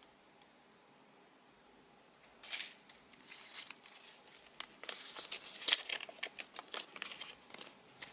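Surprise-toy packaging crinkling and rustling in the hands, with many sharp crackles and clicks, starting about two seconds in.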